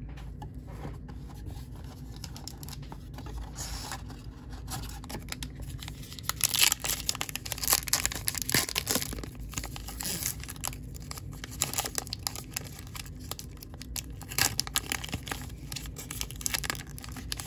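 Crimped plastic wrapper of a 2022 Topps Heritage baseball card pack being torn open and crinkled by hand, with repeated irregular crackling tears, the loudest about six to seven seconds in.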